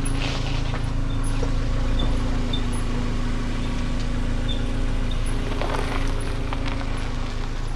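Subaru Impreza's flat-four engine idling steadily.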